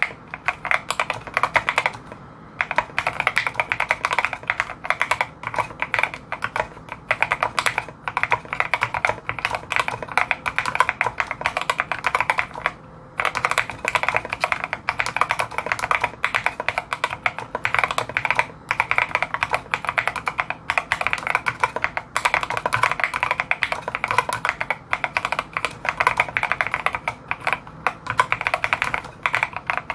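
Fast, continuous typing on a Mysterium TKL mechanical keyboard with lubed and filmed Gateron Ink Black linear switches, with brief pauses about two and thirteen seconds in.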